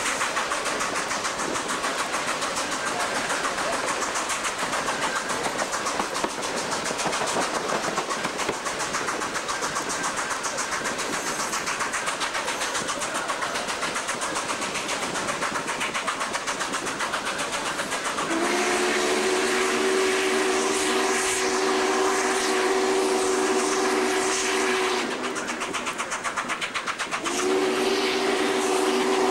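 Norfolk & Western Class J 611 steam locomotive running at speed, heard from the cab as a steady rush of running noise. About two-thirds of the way in, its chime whistle sounds a long blast of several notes at once, and after a short gap it starts another long blast that is still going at the end.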